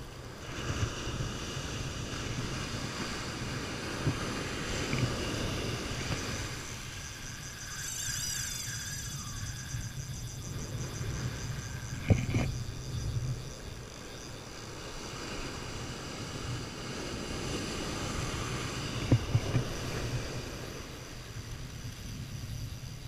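Surf washing onto the beach with wind buffeting the microphone in a steady low rumble, broken by a sharp knock about halfway through and a few more near the end.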